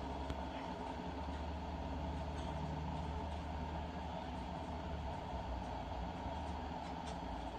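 Viomi portable electric kettle-tumbler heating water toward the boil: a steady rumbling hiss of water coming to the boil, with a few faint ticks.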